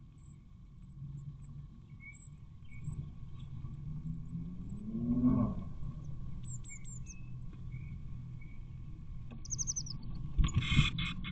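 Eurasian blue tit nestlings in a nest box giving short, thin, high chirps, ending in a louder burst of rapid begging and rustling as the adult bends over them to feed. About halfway through, a low sound rises and falls in pitch.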